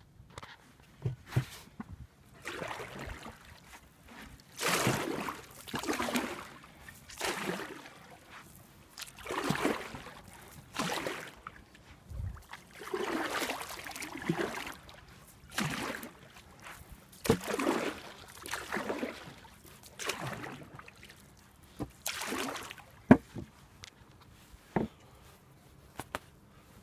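Water sloshing and splashing in a steady rhythm of strokes, about one every one to two seconds, as a small boat is paddled or rowed, with a few sharp knocks.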